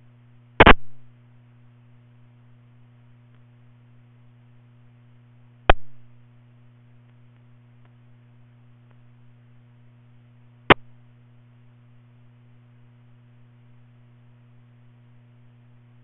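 Two-way radio scanner audio: a steady low hum broken by three sharp squelch clicks about five seconds apart, the first slightly longer than the others.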